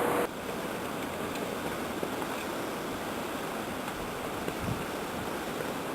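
Steady blizzard wind, an even rushing noise, with wind buffeting the microphone. A louder noise with a steady hum cuts off a moment in.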